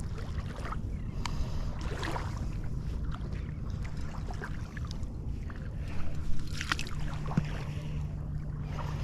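Low rumble of a boat motor running out on the water, with a steady hum coming in about seven seconds in, over wind on the microphone and a few light clicks.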